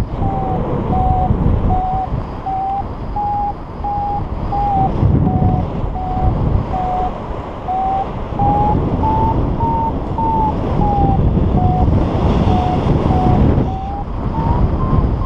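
Paragliding variometer beeping in an even, rapid series whose pitch sinks and rises and climbs higher near the end, the sign of the glider gaining height in a thermal. Wind buffets the microphone underneath.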